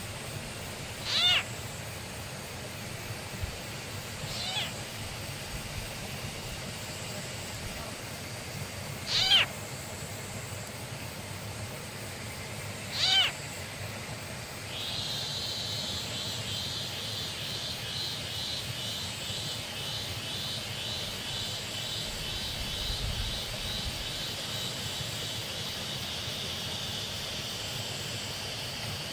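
Four short, pitched animal cries, each under a second, come several seconds apart through the first half. About halfway, a steady high buzzing drone with a regular pulse sets in and carries on.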